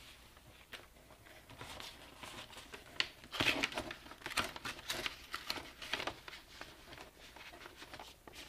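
Paper rustling and crinkling as printed instruction booklets and a loose paper sheet are handled, shuffled and pulled apart, loudest about three to five seconds in.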